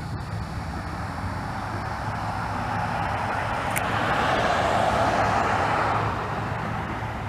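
A vehicle passing by: a broad rushing noise that swells to a peak about five seconds in, then fades, over a steady low hum.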